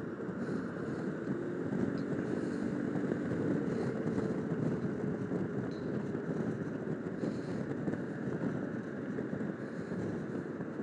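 Yamaha XMAX 300 scooter riding at steady speed: wind rushing over the microphone, with the single-cylinder engine's drone underneath.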